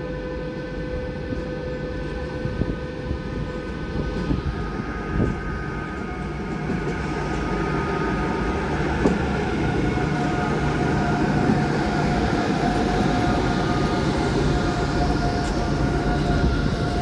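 DB Class 145 (Bombardier TRAXX) electric locomotive pulling away with a container train. Its traction equipment gives several steady whining tones that change pitch about four seconds in, over a rail rumble that grows louder as it approaches.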